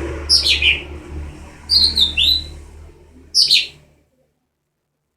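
A young green, yellow-headed songbird, just learning to sing, giving three short bursts of high chirps that fall in pitch. A low hum runs under the chirps, and all sound stops about four seconds in.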